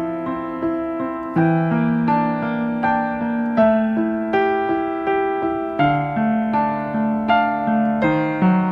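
Background music: a gentle piano melody of held notes, each struck note fading before the next.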